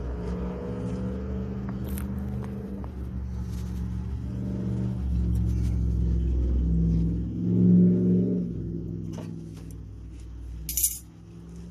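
A steady engine-like rumble with a few low tones that shift in pitch and swell a little before the eight-second mark, then fade; a sharp click near the end.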